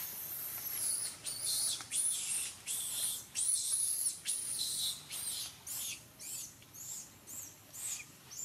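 A series of shrill, very high-pitched animal calls: one long call first, then about a dozen shorter calls at roughly two a second that grow shorter and fainter until they stop.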